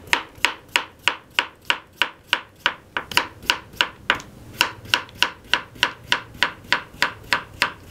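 Kitchen knife slicing a raw potato into thin rounds on a wooden cutting board, the blade knocking the board in a steady rhythm of about four strokes a second.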